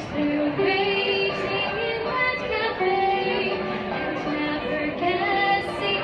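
A girl's solo voice singing a musical-theatre song, holding long notes and moving between pitches.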